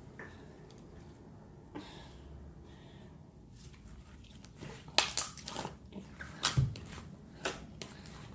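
Rubbery clear slime being squeezed and worked by hand, giving a quick cluster of sharp clicks and pops in the second half.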